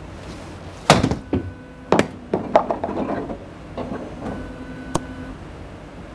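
Sharp golf club-on-ball strikes and clicks at a practice range, several in a few seconds, the loudest about a second in.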